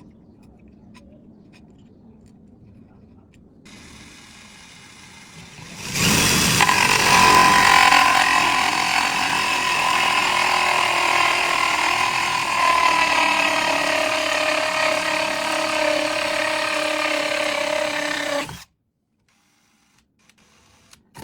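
Electric drill driving a hole saw, starting about six seconds in and running steadily, its motor whine sinking in pitch from about ten seconds in as the saw works, then cutting off abruptly near the end.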